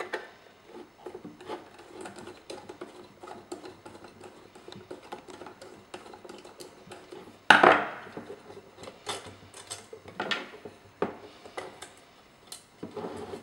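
Light metallic clicking and clinking of a hand tool and small metal parts as the small screws of a wheel-and-axle assembly are loosened. One louder metal clatter comes about seven and a half seconds in, with a few smaller knocks later.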